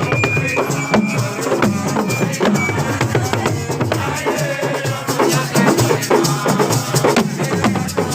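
Lively music driven by fast, dense drumming, many strikes a second at a steady loudness.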